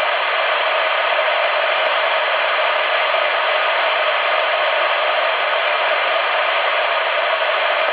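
Steady hiss of a CRT SS 9900 CB radio receiving on single sideband with no station coming through: open-channel band noise through the radio's speaker.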